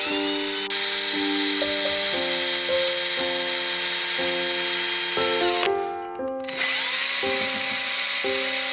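Power drill spinning a mixing rod to stir pigment into epoxy resin, a steady high whine that stops about five and a half seconds in and spins back up a second later, under background music.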